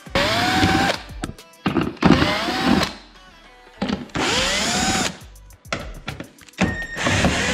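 Cordless drill/driver backing out plastic body-panel screws in four short runs of about a second each. Each run has a motor whine that rises as it spins up.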